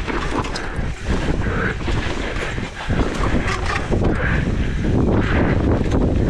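Enduro mountain bike descending a trail at speed. Wind buffets the microphone over the rattle of tyres, chain and frame on rough ground, with many sharp knocks.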